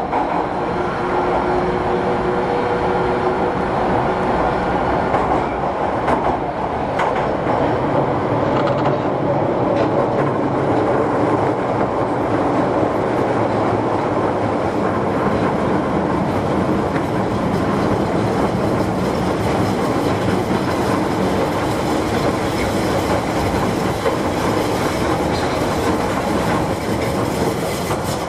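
Interior running noise of an Osaka Metro 31 series subway train travelling through the tunnel: a steady rush of wheels on rail with clickety-clack from the track joints.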